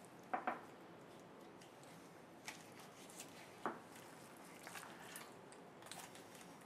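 Faint knife-and-hand work on a raw turkey thigh being boned on a wooden board: soft wet squishing of the meat with a few short knocks and clicks, the loudest a quick double knock about half a second in and another just under four seconds in.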